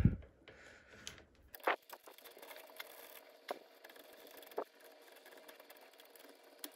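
A few light, scattered metal clicks of pliers and a socket tube working a nut loose on a scooter's brake-cable fitting.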